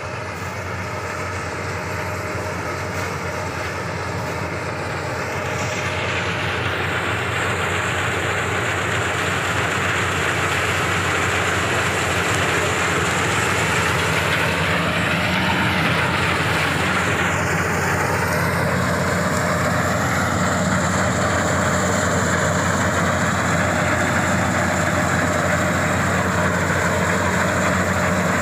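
Delta combine harvester cutting rice, its engine and machinery a steady drone that grows louder as the machine comes closer.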